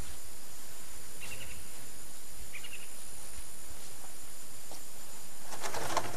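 Rural outdoor ambience: a steady high insect drone, with two short bird chirps in the first few seconds. A brief rustling scrape near the end is the loudest moment.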